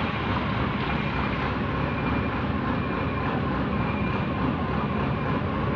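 Heavy diesel engine of a Kobelco RK160-2 rough terrain crane running steadily, with a faint high tone coming and going.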